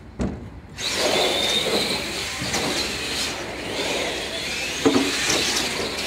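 Radio-controlled monster trucks racing, their electric motors and gears whining up and down in pitch over the noise of tyres on the floor; the sound comes in abruptly about a second in. A short knock about five seconds in, as of a truck landing or striking a ramp.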